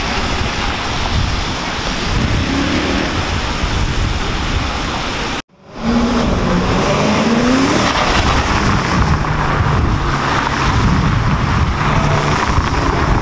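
Cars driving past on a wet cobbled street: engine noise with a steady hiss of tyres on the wet road, and a short rising engine note soon after the sound drops out briefly about five and a half seconds in.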